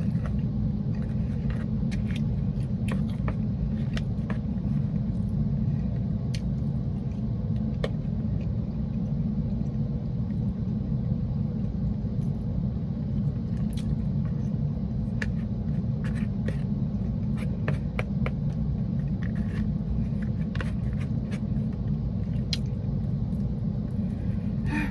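Steady low rumble inside a parked car, with scattered small clicks and taps from eating at a food tray.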